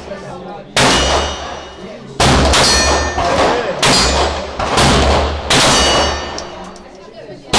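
Five handgun shots fired one at a time at uneven spacing, a second or so apart, each fading away. Several are followed by a thin metallic ring, the ping of bullets striking steel targets.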